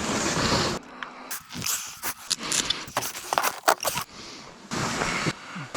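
Wind buffeting the microphone, then a quieter stretch of short, sharp clicks and scrapes, then wind again briefly near the end.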